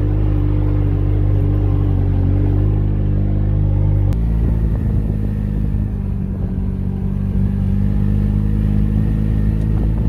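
Tractor engine running steadily, its note shifting abruptly about four seconds in.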